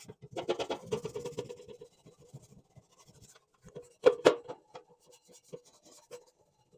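An oven rack being scrubbed: irregular rubbing and scratching, loudest in the first second and a half, with a couple of sharp knocks about four seconds in.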